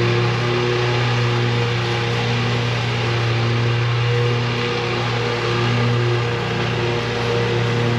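Lawn mower engine running steadily under load, a constant hum with no change in speed.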